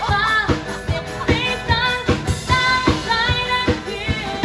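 A live band plays a pop song: a singer over acoustic guitar and a drum kit, with a steady beat about twice a second.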